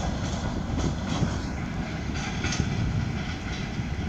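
Freight train of gondola and tank wagons rolling past on the track: a steady low rumble with a few faint clicks from the wheels.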